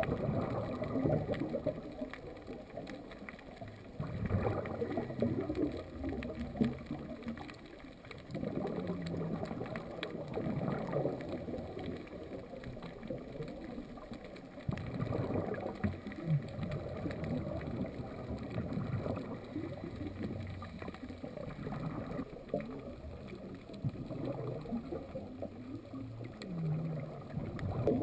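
Scuba regulator exhaust bubbles gurgling, recorded underwater, swelling in a burst with each breath about every four or five seconds.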